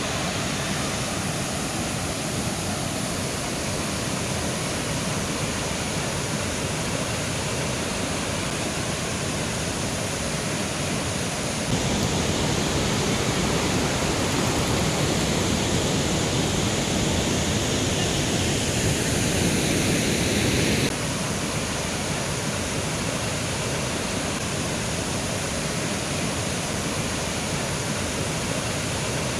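Mountain river flowing: a steady rush of water. It grows louder about a third of the way in and drops back suddenly a little past two-thirds.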